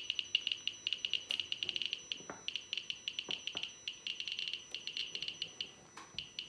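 Geiger counter clicking irregularly, each count a short high-pitched chirp, several a second and thinning out in places. The rate is about background level, with the probe 15 cm from the collected radon daughter products.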